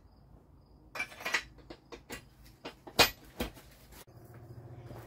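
Steel parts clinking and knocking against a rusty Model A front axle as tapered pieces are fitted into its ends, with a sharp metal clank about three seconds in.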